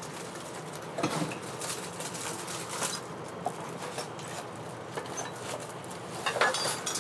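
Rummaging through trash in a dumpster: scattered clicks, knocks and rustling as bags and kitchen items are shifted, with the loudest cluster about six seconds in.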